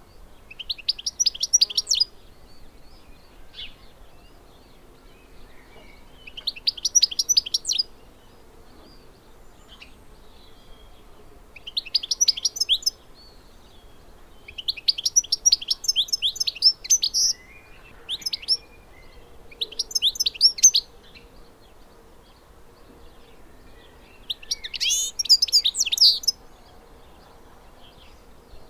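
A small songbird of the finch family singing, in short phrases of quick, twittering high notes, each phrase lasting one to two seconds with pauses of a few seconds between them.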